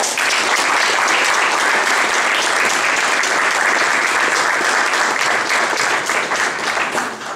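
Audience applauding: dense, loud clapping that starts abruptly and dies away near the end.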